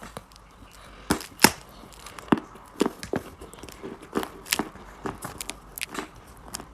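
Mali eating chalk being bitten and chewed close to the microphone: a string of irregular sharp crunches and snaps, the loudest pair about a second in.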